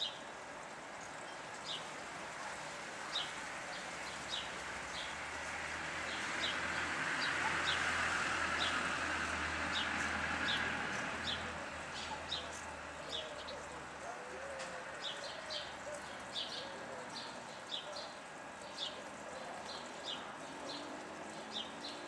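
House sparrows chirping: short single chirps, one or two a second, running on throughout. Around the middle a rushing noise with a low hum swells and fades over several seconds.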